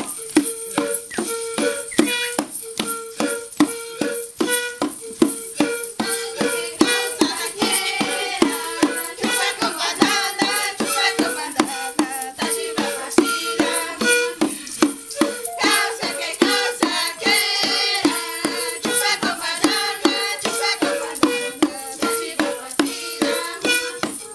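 Background music: a rattle keeps a steady beat of quick strokes over a repeating held note, with a melody coming in across the middle.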